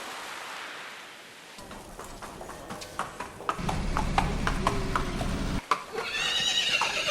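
Irregular sharp knocks and clatter, then a high, wavering animal call near the end.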